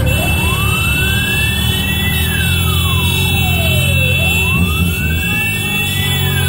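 A siren wailing slowly, each cycle rising over about two seconds and falling over about two seconds, over the steady low rumble of a convoy of motorcycle and vehicle engines.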